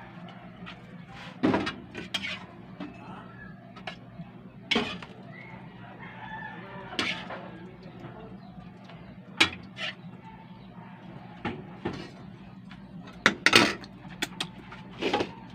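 A metal spoon knocking and scraping against a metal cooking pan and plate as food is dished out. There are a handful of sharp clinks several seconds apart, over a steady low hum.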